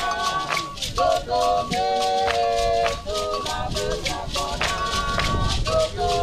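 Ghanaian drum-and-song ensemble performing: several voices singing together in a moving melody over a steady shaken-rattle rhythm and drumming.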